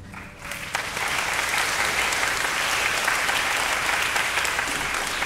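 Audience applause that starts about half a second in, after the orchestra's last sound fades, and then goes on steadily.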